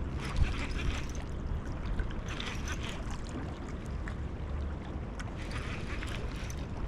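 Low wind rumble and flowing river water, with patches of rustling and a few sharp clicks, the loudest about half a second in.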